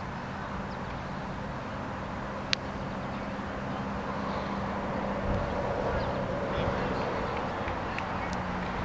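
Open-air field ambience: a steady low hum, with a broader distant rumble swelling in the second half and one sharp click about two and a half seconds in.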